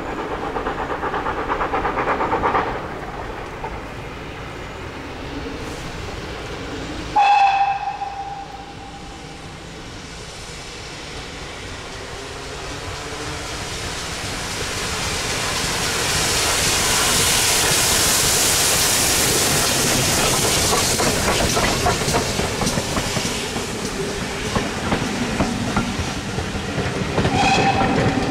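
Steam locomotive sounding a short whistle blast about seven seconds in. It then passes with a swelling hiss of steam, loudest midway, and its coaches follow with a clickety-clack of wheels on rail joints. Another short whistle blast comes near the end.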